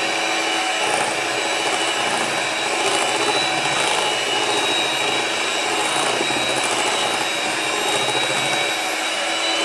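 Electric hand mixer running at a steady pitch, its motor whining evenly while the beaters churn through thick cookie batter of flour and creamed butter and sugar.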